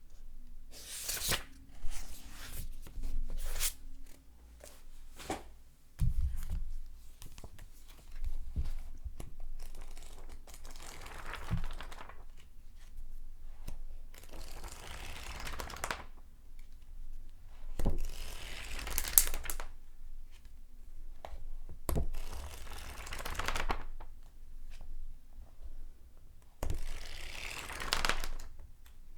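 Paper pages being turned one after another. Each turn is a rustle of paper: some are short sharp flicks, others longer sweeping rustles of about two seconds.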